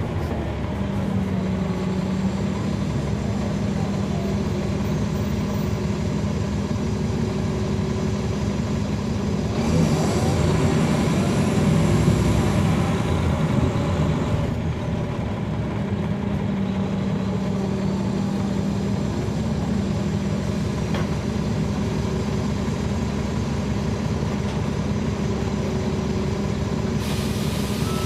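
Caterpillar C13 ACERT diesel engine of a NABI 40-foot transit bus, heard from the rear seats, running steadily. About ten seconds in it grows louder for about five seconds, with its pitch rising and falling, then settles back. A hiss starts near the end.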